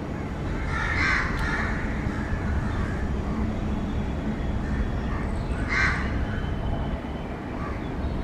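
A crow cawing, a few harsh caws about a second in and one more near six seconds, over the steady low rumble of an approaching electric locomotive hauling a container freight train.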